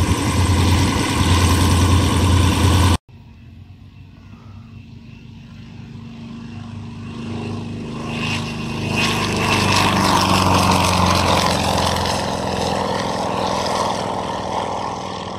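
Light aircraft engines and propellers departing. One engine runs loud and close for about three seconds and cuts off suddenly. Then another aircraft's engine grows louder as it approaches, is loudest about ten seconds in, and slowly fades.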